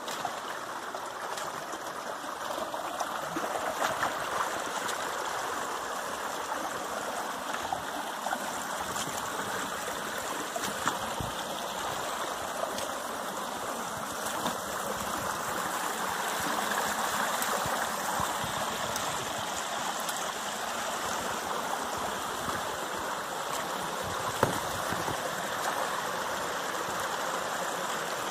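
Small rocky forest stream running steadily over stones and little cascades, a constant splashing of water, with a few brief faint knocks and one sharper tick near the end.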